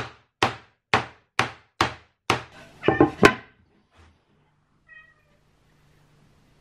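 Eight sharp knocks on a laminated plywood subwoofer cabinet, about two a second, as the top panel is tapped down to check that it seats. A cat meows once, briefly, about five seconds in.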